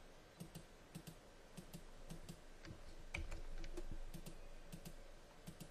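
Computer mouse and keyboard clicking faintly: a dozen or so scattered, irregular clicks as the operator holds Alt and clicks to select faces.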